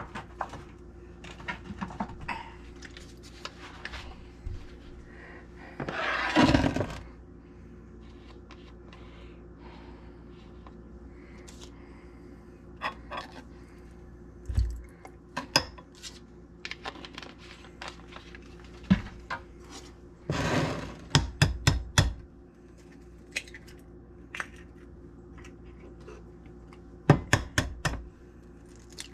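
Kitchenware being handled: scattered clinks and knocks of glass bowls, a metal spoon and a saucepan, with two longer scraping, rustling stretches. Near the end comes a quick run of sharp taps as an egg is cracked against the saucepan.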